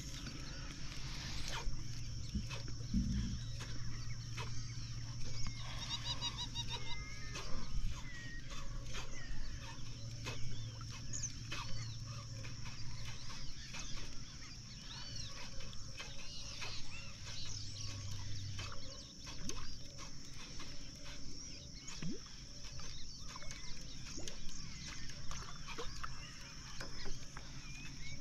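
Marsh ambience: a steady high-pitched insect drone with many short animal chirps and calls scattered through it, and a low hum that comes and goes over the first two-thirds.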